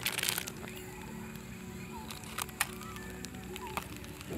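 A lighter clicking a few times as a firelighter cube is lit among charcoal in a folding stainless-steel grill, with two more sharp clicks about halfway through. Underneath runs a steady low hum with faint short chirps.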